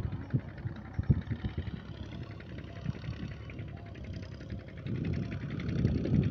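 Farm tractor's diesel engine running steadily as it pulls a tiller across a field, under irregular low thumps and a low rumble that grows louder near the end.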